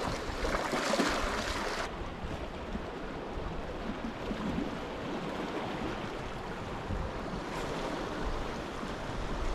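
Sea waves washing and swirling against a rocky shore, with wind rumbling on the microphone. The close hiss of the wash drops suddenly about two seconds in, leaving a softer, steady surf.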